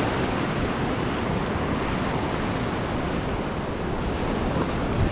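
Small surf breaking and washing up a sandy beach in a steady rush, with wind buffeting the microphone.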